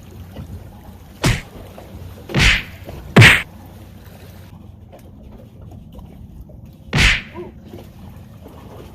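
Four sharp thumps or slaps on the boat: three in quick succession, the third the loudest, then one more after a pause of about four seconds.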